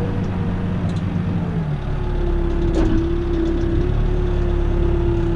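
Backhoe's diesel engine running, its note shifting about two seconds in, with a steady whine from then on and a few light clicks.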